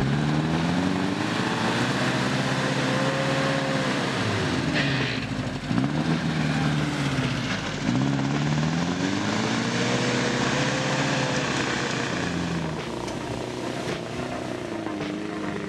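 Daihatsu Feroza's engine revving under load while driving through deep mud, its note climbing and dropping twice as the throttle is opened and eased off.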